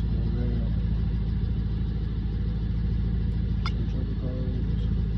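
Dodge Charger R/T engine idling steadily, a constant low hum. Two short sharp clicks, one at the start and one a little over two-thirds of the way in.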